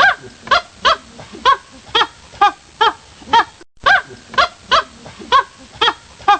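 Monkey calling in a fast, regular series of short pitched calls, about two a second, with a brief break a little past halfway.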